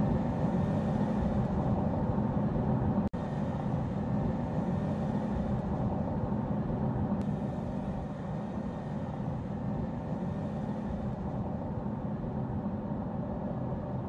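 Car driving along a road at speed: steady engine and tyre-on-asphalt road noise. It cuts out for an instant about three seconds in.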